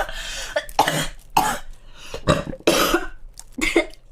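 A girl coughing in a fit: about six coughs in quick succession.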